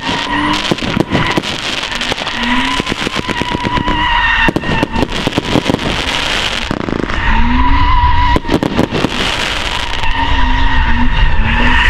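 BMW E36 328i drifting: its straight-six engine running hard under a steady high-pitched tyre squeal, which drops out for a couple of seconds in the middle and returns. The engine gets louder in the second half, and many sharp cracks and pops run through the whole sound.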